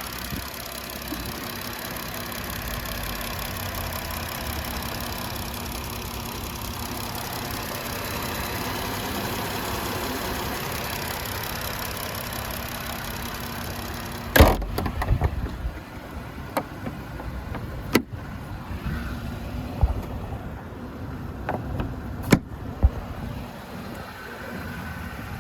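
2024 Jeep Wrangler Rubicon engine idling steadily. About halfway through comes a single loud thump, after which the engine sound is much fainter and a few scattered knocks and clicks follow.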